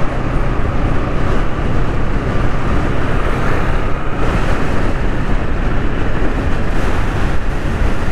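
Motorcycle riding along at a steady pace: a steady rushing sound of engine and wind noise on the microphone, with no clear engine note standing out.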